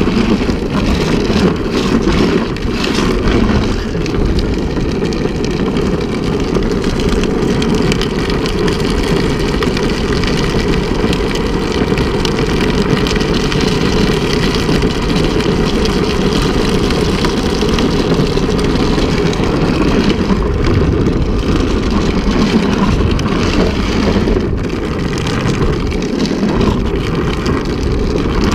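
Steady, loud rush of wind and road noise from riding a drift trike along a road, with no change in pace.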